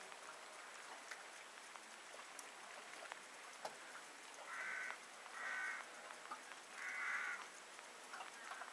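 A bird calling three times, short calls about a second apart about halfway through, over faint scattered clicks.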